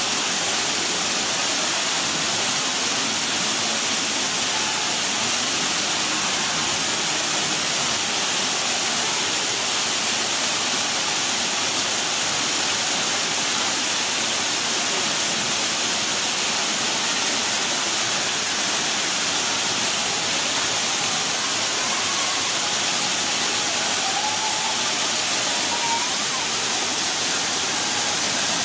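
Steady, even rush of an artificial waterfall pouring into a pool.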